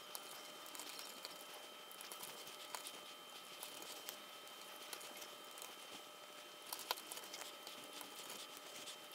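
Faint, scattered clicks and taps of solid-core hookup wires being pressed into a solderless breadboard by hand, with a couple of sharper clicks about two-thirds of the way through.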